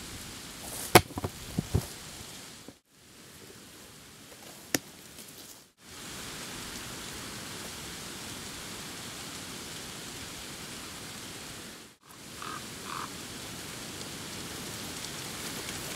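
Steady rain-like hiss of outdoor noise, broken off briefly three times. Several sharp clicks or knocks come about a second in and one near five seconds, with two short high notes around thirteen seconds.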